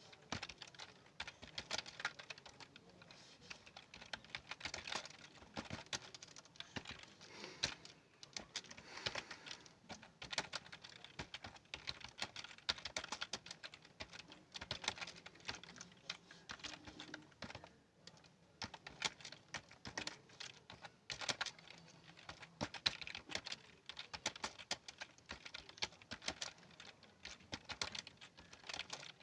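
Continuous typing on a keyboard during a timed typing test: a steady, uneven patter of key clicks, several a second, with brief pauses between bursts.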